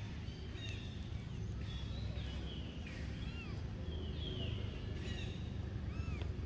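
Birds chirping: short, high, falling and arching calls, one every second or so, over a steady low rumble of outdoor background noise.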